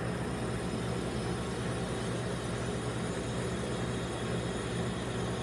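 Steady hum of a rolled-ice-cream machine's refrigerated cold plate running, a low drone with an even hiss above it.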